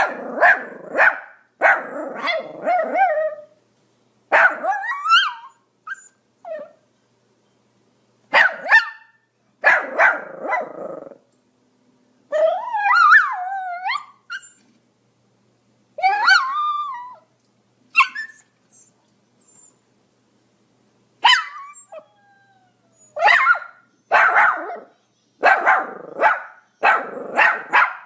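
Pomeranian barking in quick clusters of short, sharp barks with pauses of a second or two between clusters. A couple of longer, wavering whining cries come in about the middle.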